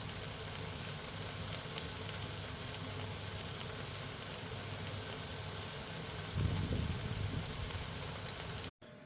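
Dakgalbi (spicy chicken with onions and carrots) stir-frying in a pan, a steady sizzle. A brief louder low sound comes about six and a half seconds in, and the sizzle cuts off suddenly near the end.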